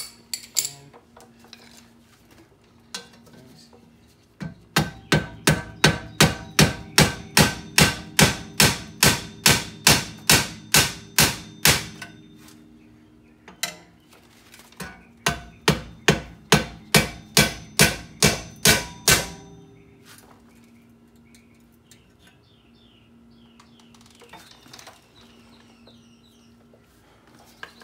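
Hammer blows on steel, about three a second in two long runs with a short break between, each strike ringing. A stuck, rusted-in wheel hub assembly is being knocked loose. A few lighter knocks come before and after.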